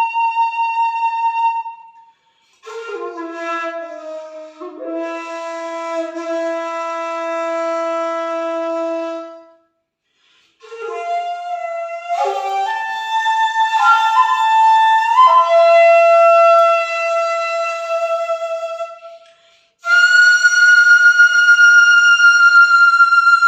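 Jinashi shakuhachi, a 1.6-shaku end-blown flute of black madake bamboo, playing long held notes in phrases broken by brief breath pauses. It slides and steps between pitches, dropping to a low sustained note in the first phrase and rising to a high held note near the end.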